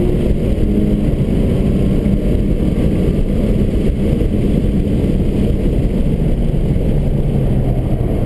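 Subaru BRZ's 2.0-litre flat-four engine running with heavy tyre and road rumble, heard from inside the cabin at speed. The engine note sits lower near the end.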